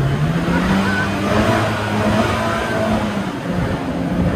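Small jet boat's engine running under throttle, its pitch rising over the first second or two and easing off slightly about three seconds in.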